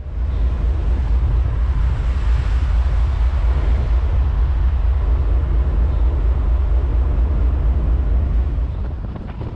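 Steady, heavy low rumble with a rushing wash over it: the icebreaker USCGC Healy under way, its hull pushing through broken sea ice and water. It eases slightly near the end.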